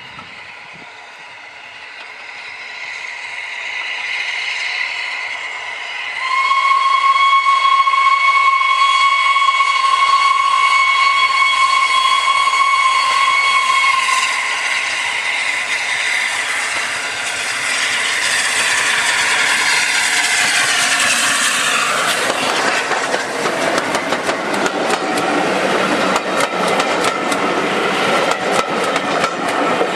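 Steam locomotive approaching at speed and sounding one long, steady whistle for about eight seconds. The exhaust grows louder as it nears, and from about two-thirds of the way through the passing coaches clatter rapidly over the rail joints.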